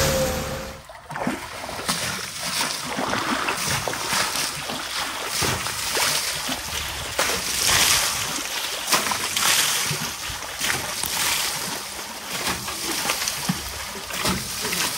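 Water scooped and thrown by hand against a tractor's wheels and body: a run of irregular splashes and splatters in shallow water.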